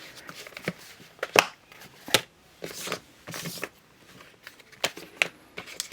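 Apple Pencil retail box being handled and opened: scattered sharp clicks and taps with short rustles of cardboard and packaging.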